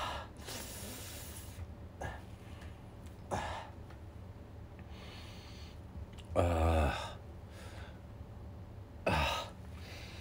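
A man breathing close to the microphone, with a breathy exhale near the start and two short wordless voice sounds, one past the middle and one near the end.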